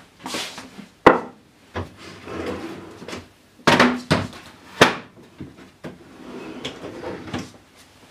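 Plastic Festool Systainer cases being set onto and pushed in on pull-out cabinet trays running on drawer slides: sliding and rustling, with several sharp knocks of plastic against wood, the loudest about one, four and five seconds in.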